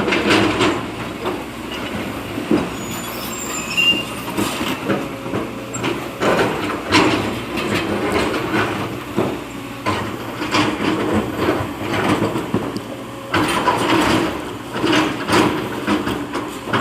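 A diesel excavator at work: the engine runs steadily while the bucket clanks and scrapes through sand and stone, with irregular knocks throughout.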